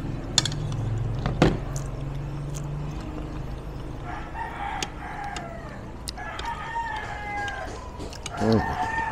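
A rooster crows twice in the background, about four and six seconds in. There are a few sharp clinks of a spoon against a plate early on.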